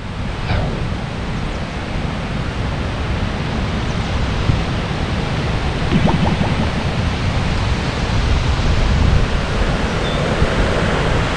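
Strong storm wind gusting through riverside trees and buffeting the microphone as a storm approaches: a dense rushing noise that grows a little louder toward the end.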